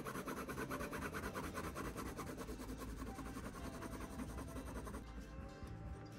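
Coloured pencil scratching on hot-pressed watercolour paper in rapid back-and-forth shading strokes, several a second. It drops to a quieter, softer scratching about five seconds in.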